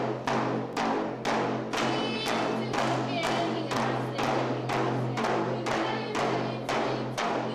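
Yupik frame drums beaten together in a steady, even rhythm, a little over two beats a second, as for Yupik dancing.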